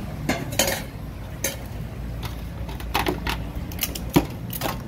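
Utensils and dishes clinking and clattering in an irregular run of about half a dozen sharp knocks, the loudest about four seconds in, over a steady low hum.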